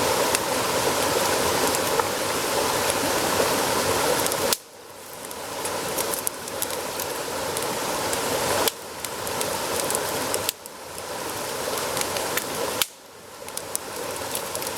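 Campfire hissing steadily with sharp pops; after four of the pops the level drops suddenly, then slowly swells back.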